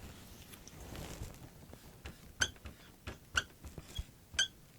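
Writing strokes, heard as about five short squeaks spread over the second half, as a word is written out.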